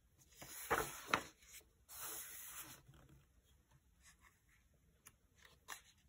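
A page of a paperback colouring book being turned by hand: a rustle of paper with two sharp flicks about a second in, then a softer sliding swish, and a couple of light ticks near the end.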